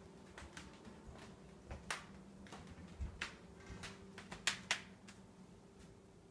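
Faint, irregular clicks and light taps, the loudest two close together about four and a half seconds in, over a low steady hum.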